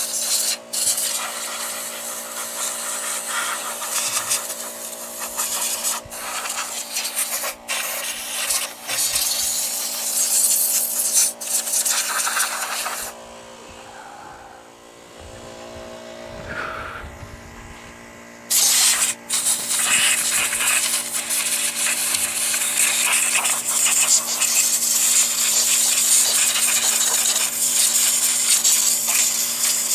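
Compressed-air blowgun hissing as it blows mouse-nest debris out of a Briggs & Stratton flathead engine's cooling fins and shroud. The hiss comes in long bursts with brief breaks, stops for about five seconds near the middle, then runs steadily again, over a faint steady hum.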